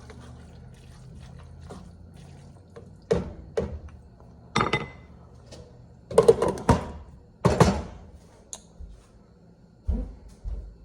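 Cookware knocking and clattering, pot against utensil, in a handful of sharp separate knocks that start about three seconds in and are loudest around six to eight seconds in.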